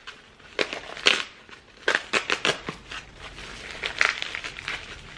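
Plastic courier wrapping sealed with packing tape being crinkled and pulled open by hand, in short irregular crackles that are busiest around two seconds in.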